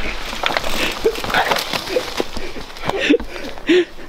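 Loose dirt, dry twigs and pine needles crackling and scuffing as a crashed mountain biker scrambles out of a dirt bank on hands and knees, with a few short vocal exclamations and breaths.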